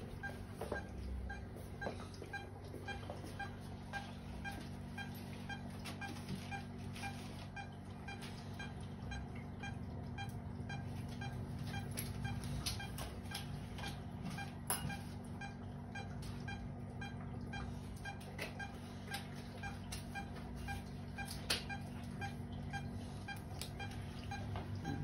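Veterinary patient monitor giving evenly spaced short beeps in time with the anaesthetised dog's pulse, over a steady low hum of theatre equipment. A few sharp metallic clicks of surgical instruments break in.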